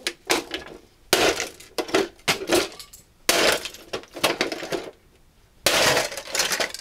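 Hard plastic speaker-dock housing being broken open with a hatchet: three bursts of cracking and snapping plastic, about a second in, a little past the middle, and near the end.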